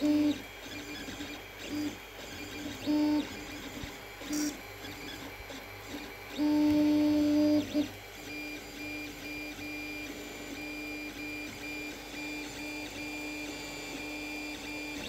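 Creality CR-10S 3D printer printing: its stepper motors whine in short bursts as the print head moves, with one longer, louder whine about halfway through, then settle into a steady, evenly pulsing whine, over the steady hum of the cooling fans.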